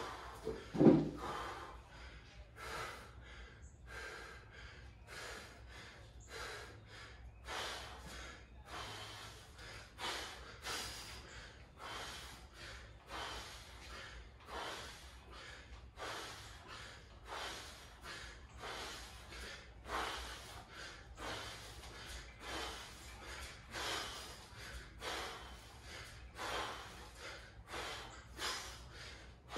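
Hard, rapid breathing from a man mid-set of kipping chest-to-bar pull-ups, quick regular breaths in and out through the set, with one loud thump about a second in.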